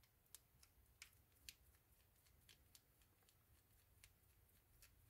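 Faint, irregular small clicks and ticks of a precision screwdriver working set screws out of a Shimano Custom 1000 spinning reel's body, over near silence.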